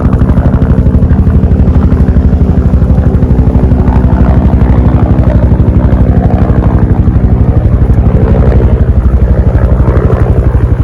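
Helicopter flying overhead: its rotor blades make a rapid, even chopping beat over a steady low hum.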